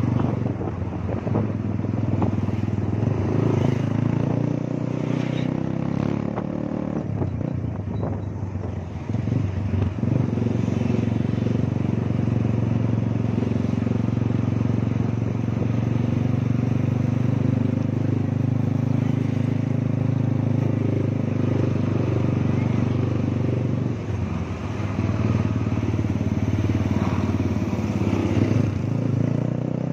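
Motorcycle engine running steadily while being ridden in traffic, with brief dips in level about a third of the way in and again near 24 seconds.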